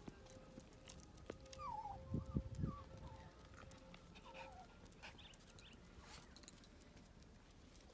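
Cavoodle puppies playing, giving a few faint, high whimpers that fall in pitch, with a cluster of soft thumps about two seconds in.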